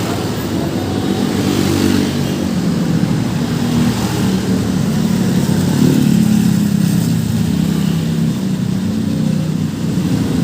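Passing road traffic: vehicle engines running and accelerating by, loudest around the middle.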